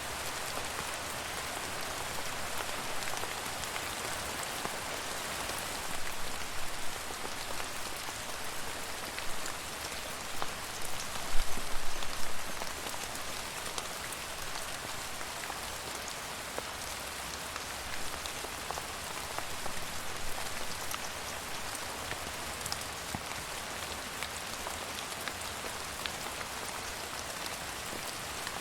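Steady rain falling on a surface, a dense even hiss of drops with scattered louder individual drops, a cluster of heavier splashes about eleven seconds in.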